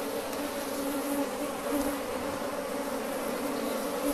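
A colony of honey bees buzzing in an open hive box during a frame inspection: a steady, even hum of many bees with a low drone tone and a higher one above it.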